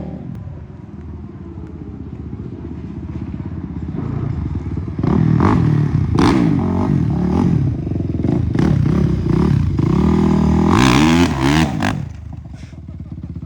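Dirt bike engines revving up and down as they ride by, growing loud about five seconds in and dropping away sharply near the end.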